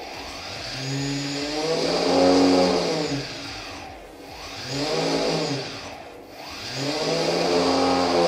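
Brushless outrunner drone motor, without a propeller, spun up and back down three times by turning a servo tester's throttle knob, its pitch rising and falling each time over a steady high whine. The ESC driving it has just been calibrated.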